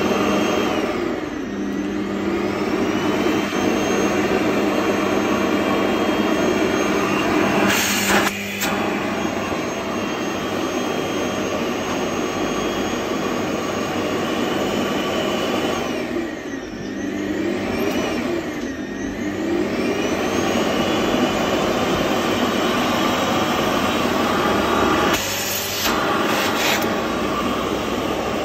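Vacuum cleaner motor running with a steady high whine; its pitch sags and climbs back up shortly after the start and twice more around the middle, and there are short knocks about a third of the way in and near the end.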